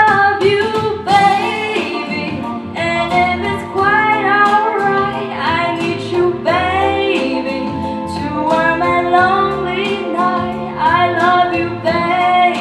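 A woman singing into a microphone over instrumental accompaniment.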